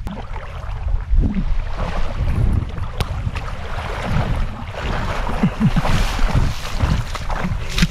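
Shallow seawater splashing and sloshing around a person's legs as they wade toward the beach, with wind buffeting the microphone.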